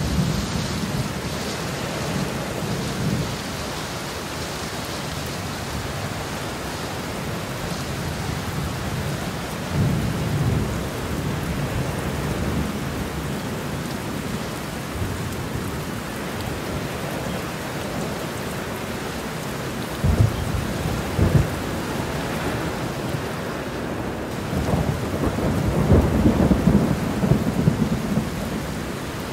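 Steady rain with thunder rumbling several times. Two sharp cracks come about two-thirds of the way through, and the loudest, longest rumble comes near the end.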